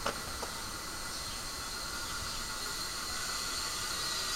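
Steady hiss with a thin high whine running through it, growing slightly louder. A light click or two comes at the very start.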